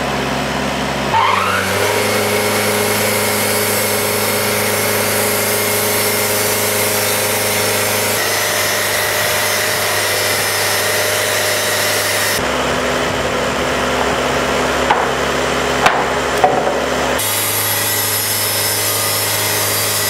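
Engine-driven portable band sawmill running and cutting a log into boards: the engine drones steadily under the noise of the blade going through the wood. The tone of the engine and blade changes abruptly a few times, and there are a few short knocks a little past the middle.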